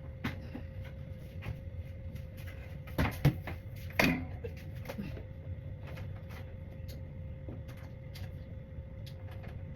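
Scattered clicks and knocks of objects being handled, with two louder clatters about three and four seconds in, over a steady low hum.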